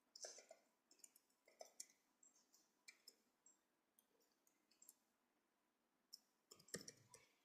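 Near silence with a few faint, scattered clicks, a small cluster of them near the end.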